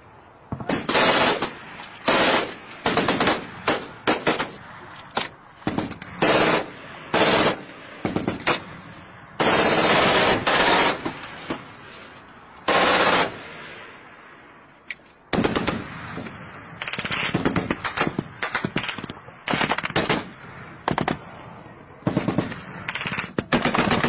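Vehicle-mounted heavy machine gun firing repeated bursts of rapid shots, mostly short, with two longer sustained bursts about ten and thirteen seconds in and a brief lull around fifteen seconds.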